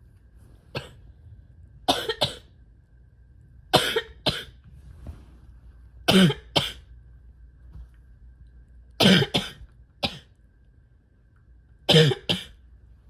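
A person coughing repeatedly, in about six short fits a couple of seconds apart, most of them two quick coughs each. It is a chesty cough from a respiratory illness on top of asthma and chronic bronchitis.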